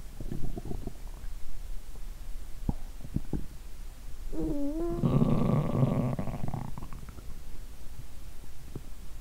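Stomach and intestinal gurgling from active digestion after drinking a lot of probiotic drink. A few short bubbly gurgles come first, then a squeaky gurgle that bends in pitch about four and a half seconds in, running straight into a louder rumbling gurgle that lasts about two seconds.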